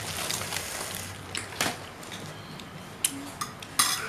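A few light clicks of a fork and spoon against a glass bowl of noodles, over low steady background noise, with a short noisy scrape near the end.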